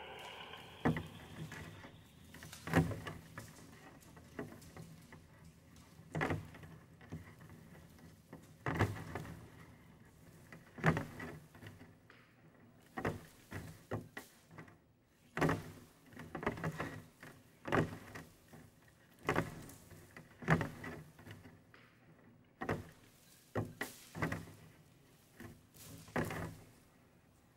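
Irregular knocks and thumps, one every second or two, some ringing briefly, over a low steady hum.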